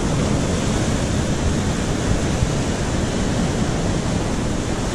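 Surf breaking and washing over a rocky shore: a steady rush of sea water with no pause.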